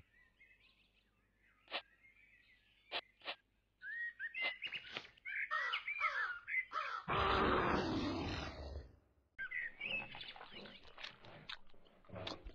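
Small birds chirping, with short twittering calls and whistled notes that come in scattered bursts. About seven seconds in there is a louder two-second burst of noise.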